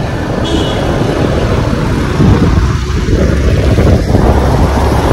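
Motor scooter engine and road noise while riding in traffic, with wind buffeting the microphone. The noise is loud and steady with irregular low thumps.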